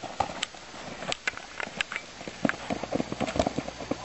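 Running footsteps on a grass football pitch: a quick, uneven series of light thuds and clicks.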